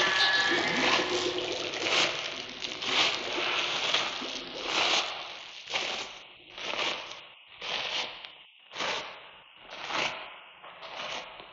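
A recorded sound effect of rhythmic, noisy scraping strokes, running together at first and then coming about once a second, each stroke rising and dying away.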